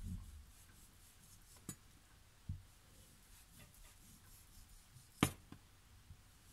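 Chef's knife slicing through a firm, dry roast turkey fillet, with faint scraping and a few soft knocks of the blade on a wooden cutting board, the sharpest about five seconds in.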